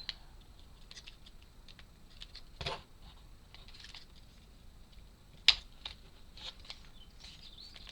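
Small laser-cut wooden puzzle parts being handled and pressed into place: light scattered clicks and taps, with a soft knock about a third of the way in and one sharp click in the second half.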